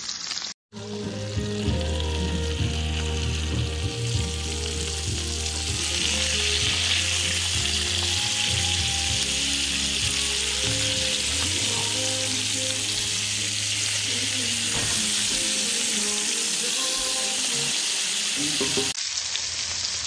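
Antelope burger patties, bacon and onions sizzling in butter and bacon grease in a cast iron skillet while the burgers are flipped, under background music with a steady run of bass notes.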